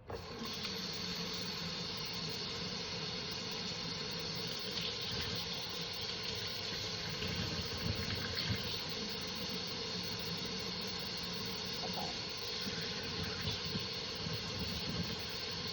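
Water tap running steadily into a sink, turned on suddenly at the start and left running to warm up.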